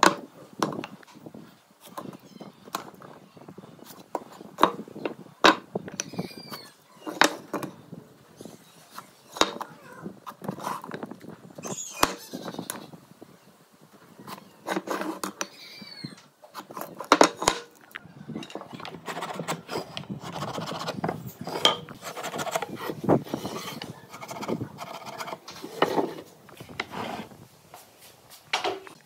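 Wooden boards and a steel square being handled and set down on a workbench while timber is marked out: irregular knocks and clicks of wood and metal on the bench top.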